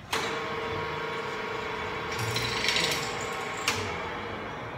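Radial drill press running with a steady motor hum and a harsh grinding noise over it. The high grinding part cuts off with a click a little before the end, leaving a lower hum.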